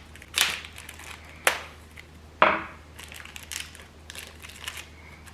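Small wrapper packet crinkling and rustling as it is handled and opened to take out the piston pin lock rings. Three louder crinkles come in the first two and a half seconds, then softer rustling.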